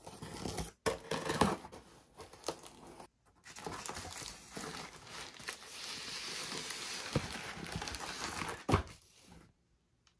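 Unboxing a vinyl LP: tape on a cardboard mailer being slit and the flaps pulled open, then plastic bubble wrap crinkling and rustling steadily as the record is slid out. A single sharp knock comes near the end, followed by quiet.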